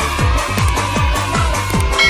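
Electronic dance music with a fast, steady kick-drum beat of about four beats a second under sustained synth tones.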